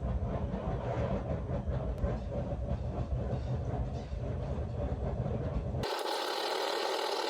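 Steady roar of a forge heating the blade before the quench. About six seconds in it cuts suddenly to a hiss with the rumble gone.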